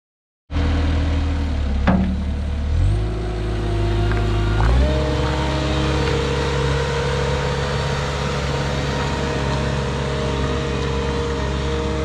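Caterpillar 242B skid-steer's four-cylinder diesel engine running as the machine drives, cutting in about half a second in. Its speed steps up twice in the first five seconds, then it holds a steady high throttle, with one sharp click near two seconds.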